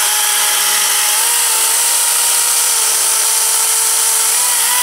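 Makita DUC400 twin-18 V (36 V) brushless cordless chainsaw running under load as it cuts through a pressure-treated 4x4 post. It makes a steady motor-and-chain whine whose pitch shifts a little as the load changes about a second in and near the end.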